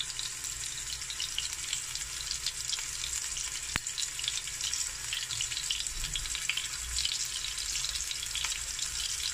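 Ribeye steak searing in hot canola oil in a ridged grill pan: a steady frying sizzle with many small crackles and one sharp click about four seconds in. It is the sizzle that shows the pan is hot enough to sear.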